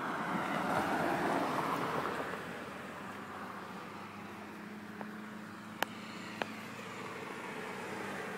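A car driving past on the road, its tyre and engine noise swelling to a peak about a second in and then falling back to a steady hum. Two sharp clicks come about six seconds in.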